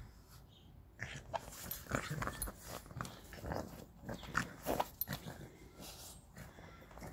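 French Bulldog puppy making a string of short vocal noises as it plays with a ball, from about a second in until about five seconds in.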